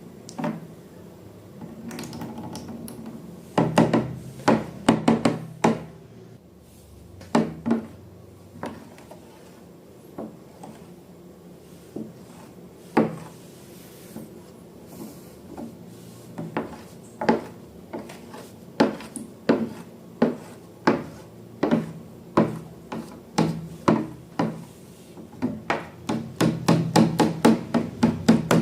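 Hand handling sounds from slime making: an irregular series of short taps and knocks, in quick runs of several a second near the start and again near the end.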